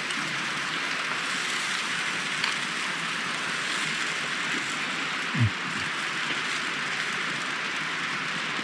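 Steady rain falling on the forest and the tarp overhead, an even hiss, with one brief low sound about five seconds in.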